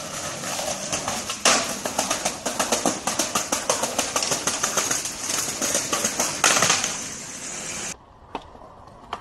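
Skateboard wheels rolling over rough street pavement: a steady gritty rattle full of rapid clicks, with two sharp board impacts about a second and a half in and again about six and a half seconds in. Near the end it cuts to a much quieter background with a few light taps.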